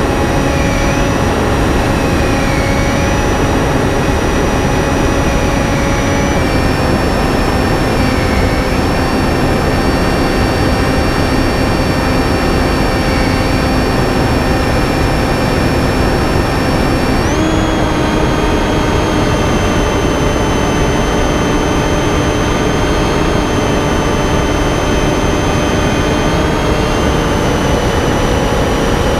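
Finwing Penguin's electric motor and pusher propeller whining steadily in flight, over a rush of wind. The pitch dips slightly about six seconds in and rises sharply at about seventeen seconds as the throttle changes.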